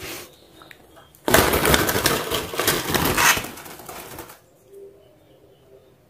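A green broadbill and an Asian fairy-bluebird flapping their wings and scuffling inside a wire-mesh cage. Starting about a second in, a dense flurry of flapping and wire rattling lasts about three seconds, then dies away.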